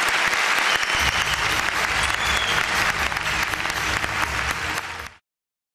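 Large audience applauding steadily, with many hands clapping together; the applause cuts off abruptly near the end.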